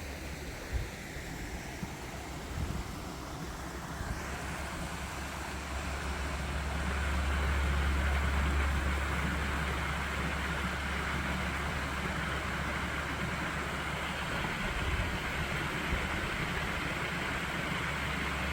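Wind buffeting the microphone outdoors: a fluctuating low rumble over a steady rushing hiss, growing stronger a few seconds in.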